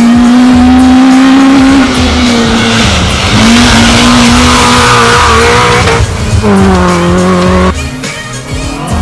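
Rally car engine at high revs, its pitch dropping in steps at several gear changes, with a hiss of spraying gravel midway as the car slides round a bend. The sound changes abruptly twice near the end.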